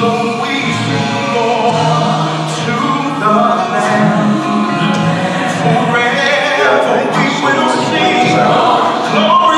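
Slow gospel music with a choir singing long held notes.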